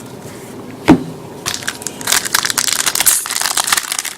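A sharp knock about a second in, then the crackling and crinkling of a trading card pack wrapper being torn open and handled.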